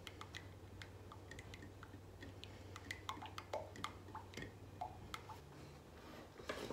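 A spoon stirring melted butter in a small ceramic cup: faint, irregular light clicks and taps of the spoon against the cup, over a faint low hum.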